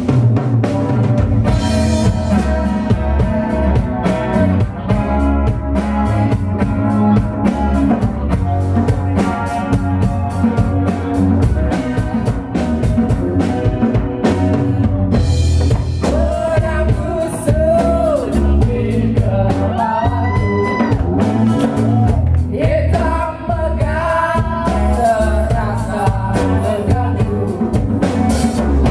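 Live band playing: acoustic guitar, bass guitar, a djembe-style hand drum and a drum kit keep a steady beat. A woman's singing voice comes in about halfway through.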